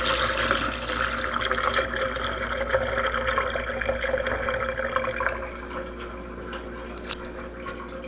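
Waste water from a Haier HLP21N portable washing machine's drain hose splashing into a stainless steel sink drain as the machine's pump empties the tub. The splashing eases off and gets quieter about five seconds in.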